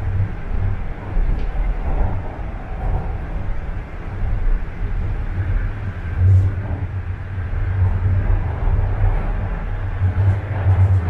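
TTC Line 1 Toronto Rocket subway train running between stations, heard from inside the car. A steady deep rumble of wheels on rail swells and eases a little as it goes.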